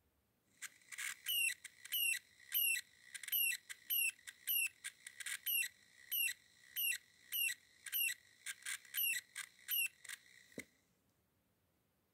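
Small DC motor from a game controller, run from a 9 V battery, squealing as it spins: a high-pitched squeak that slides down in pitch about twice a second over a steady whine. It stops with a single click near the end.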